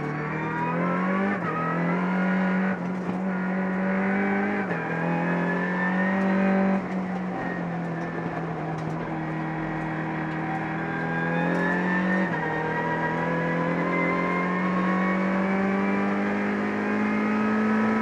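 Peugeot Racing Cup race car's engine heard from inside the cockpit, pulling hard on track. Its pitch climbs steadily and steps sharply at several gear changes.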